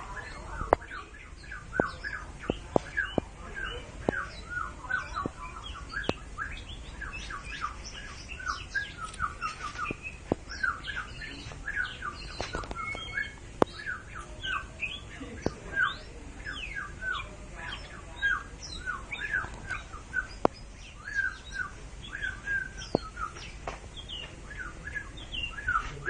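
Caged oriental magpie-robin calling in a quick, continuous run of short squawking notes, with a sharp click now and then.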